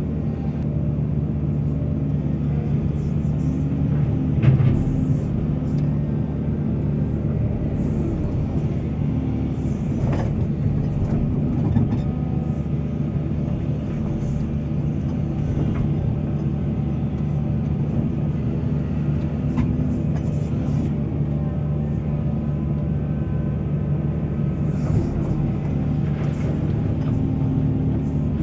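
Heavy diesel excavator engine running steadily under load, with a few sharp knocks from the working machine about four, ten and twelve seconds in.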